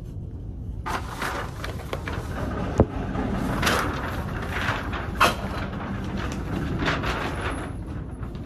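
Paper shooting target crinkling and rustling as it is handled close by, with two sharp bangs about two and a half seconds apart.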